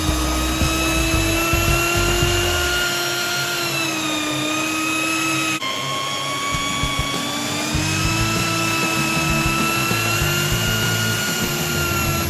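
Electric drill spinning a buffing pad against the aluminium lip of a wheel being polished to a mirror finish. The motor whine is steady, sags slightly in pitch now and then, and breaks off briefly about halfway.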